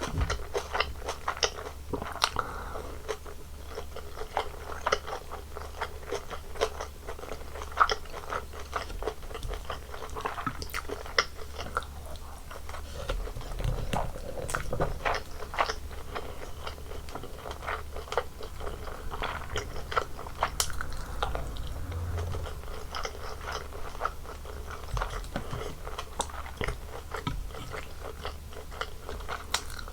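Close-miked eating sounds of a Korean home meal of bulgogi, kimchi, seaweed and rice: steady chewing with many short, crisp crunches and bites, irregularly spaced, over a faint low hum.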